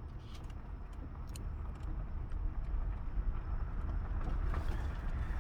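Car engine idling, heard from inside the cabin: a steady low rumble that grows slightly louder over the few seconds.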